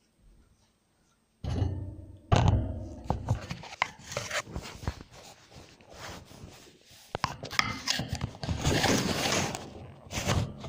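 Plastic cage base and wire cage top of a guinea pig cage being handled: two heavy thuds about a second and a half in, then scattered clicks and knocks, and a rustling scrape near the end.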